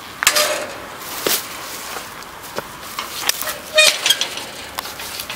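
Plastic rubbish bags rustling and crinkling as they are carried, with scattered footsteps on stone steps.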